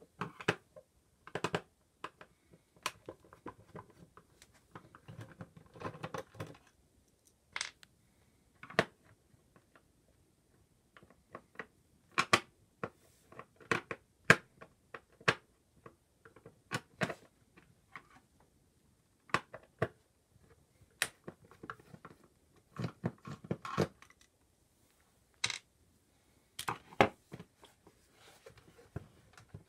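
Irregular clicks, taps and light knocks of a screwdriver and hands working on the bottom of a Roland PR-100 sequencer, taking out the case screws and setting them down on a wooden workbench.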